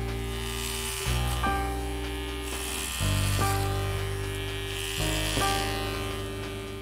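Electric shaver buzzing over jazz background music whose chords change about every two seconds.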